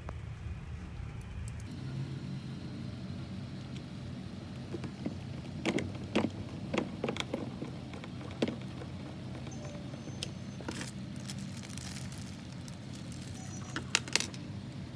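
Sharp plastic clicks and knocks as a ride-on car's motor gearbox is handled and seated into the hollow plastic body, a quick run of them in the middle and two more near the end, over a steady low hum.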